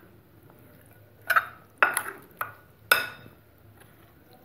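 A spoon clinking against a ceramic plate while mixing yogurt and spices into raw chicken pieces: about five sharp clinks between about one and three seconds in.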